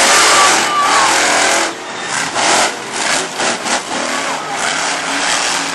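Monster truck engine at full throttle as the truck runs down the track, very loud; the level drops about two seconds in and then rises and falls unevenly.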